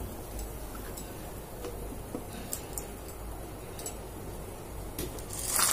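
Water boiling in a steel saucepan on a gas burner: a low steady rumble with scattered faint ticks and pops. Near the end a loud hissing rush sets in.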